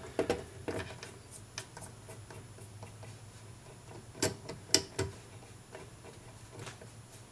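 A few faint clicks and light taps from hands working on the record changer's rubber idler wheel while conditioner is dabbed onto it with a cotton swab. The two sharpest clicks come about four and a half seconds in, over a faint steady low hum.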